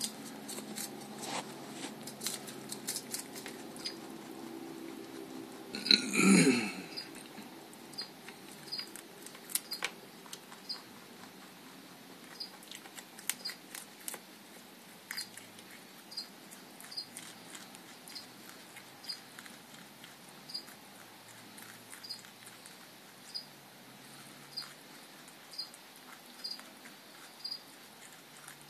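Pet rabbit crunching salad with many small clicks, and one loud burp about six seconds in that falls in pitch. Later a faint high chirp repeats about once a second.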